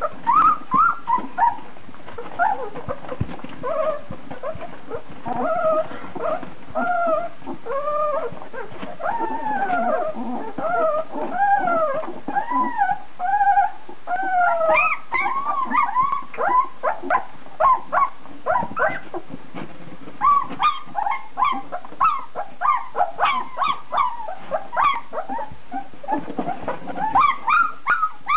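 Two-week-old German shepherd puppies whimpering and squealing: a steady run of high, short cries that rise and fall in pitch, turning shorter and choppier about halfway through.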